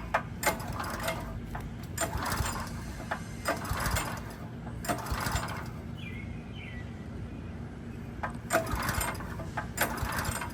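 Engine-driven pressure washer being worked on: irregular mechanical clicks and short ratcheting rattles, with the engine not starting.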